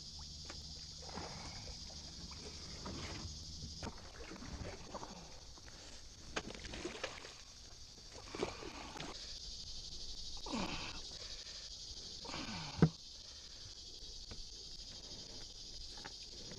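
Paddle strokes in the water, then a plastic kayak hull scraping and grinding as it runs up onto mud and flood debris, with creaking, falling-pitch scrapes and small knocks. A sharp knock about three-quarters of the way through is the loudest sound, over a steady high hiss.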